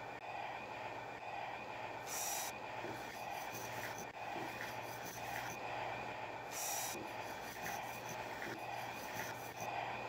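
Train sound effect: a steady running noise with a regular beat and a low hum. Two short bursts of hissing come through, about two seconds in and again near seven seconds.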